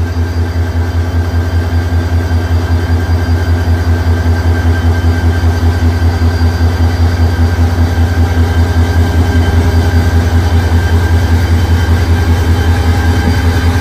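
Diesel passenger locomotive's engine running with a loud, rapid low throb and steady tones above it, growing louder as the locomotive draws closer.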